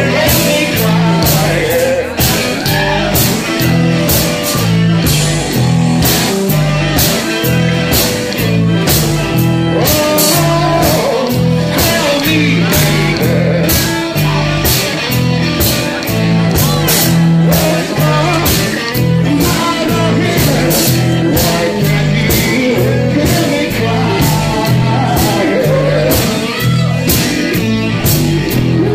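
Live blues-rock band playing, with singing over a repeating bass riff and a steady, driving drum beat.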